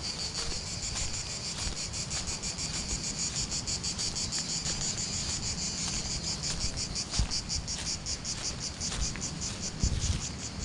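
Cicadas singing in the pine trees: a loud, high, rapidly pulsing buzz that runs on without a break, its pulses growing more distinct in the second half. A few dull low thumps sound beneath it, one about seven seconds in and another near the end.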